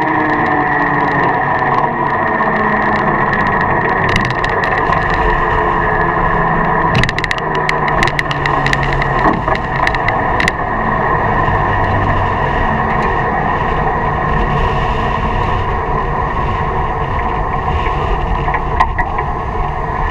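Dragster rolling slowly, heard onboard: a steady mechanical drone with whining tones held at fixed pitches, and a cluster of sharp rattling clicks about seven to ten seconds in.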